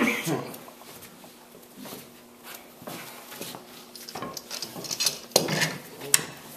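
Metal clicks and clinks of steel bar clamps being set and tightened against a wooden boat's planking, with a few sharp knocks in the second half.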